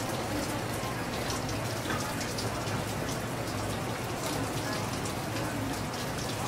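Water splashing and pattering steadily, with many small wet clicks, as wet hands clean and peel a geoduck on a wet plastic-covered surface.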